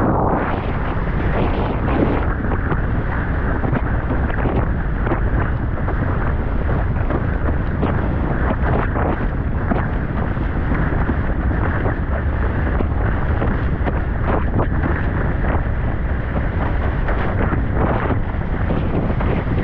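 Heavy wind buffeting a GoPro's microphone over the steady rush of water under a windsurf board planing at full speed, with small irregular slaps of chop and spray throughout.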